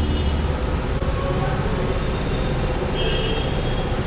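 Slow city traffic heard from a KTM Duke 200's single-cylinder engine running at low speed: a steady low engine and road rumble. A high, wavering squeal comes in about three seconds in.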